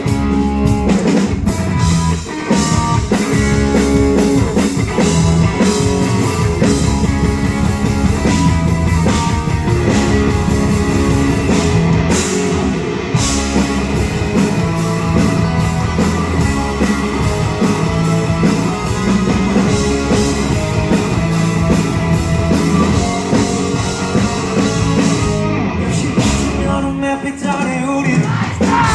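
Live rock band playing the opening of a song at full volume, with drum kit, guitars and bass over a steady driving beat, recorded from the audience at a concert.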